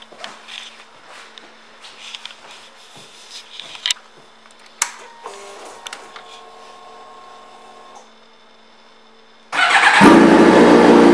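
Clicks of the ignition key and switches, then a steady hum for about three seconds as the ignition comes on and the fuel pump primes. About nine and a half seconds in, the 2013 Suzuki GSX-R750's inline-four cranks briefly, catches, and runs loudly and steadily.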